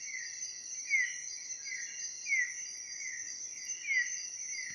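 Night forest sounds: a steady high-pitched drone of insects, with an unseen animal calling a short, falling chirp over and over, roughly every three-quarters of a second.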